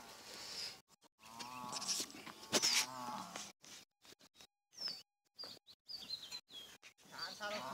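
Cattle lowing twice in the first half, two drawn-out calls, with small birds chirping in short falling notes later on. The sound cuts out briefly several times.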